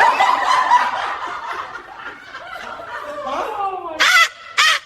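Women laughing hard, loudest at first and then trailing into softer, wavering laughs, with two short, loud bursts near the end.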